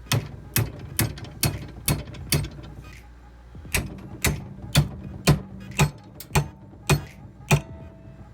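Hammer blows on a steel seat-mount bracket, about two strikes a second: about six, a short pause, then about eight more, each with a brief metallic ring.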